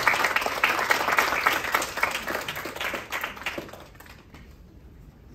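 Audience applauding, dense clapping that dies away about four seconds in.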